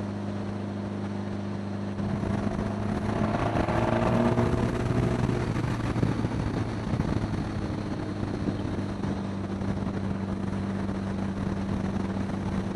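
1975 Honda Gold Wing's flat-four engine running steadily on the move, mixed with wind rushing over the microphone. About two seconds in, the wind and engine noise grow louder for several seconds, then ease back.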